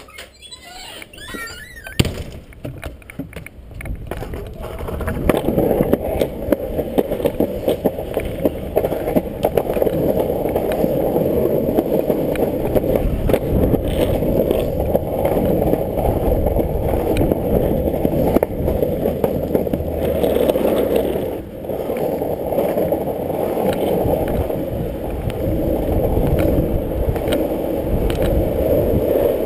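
Loaded Dancer longboard rolling on concrete and asphalt: a steady rumble of the wheels that builds over the first few seconds and runs on, dipping briefly about two-thirds of the way through. Near the start, a high wavering squeak and a sharp knock.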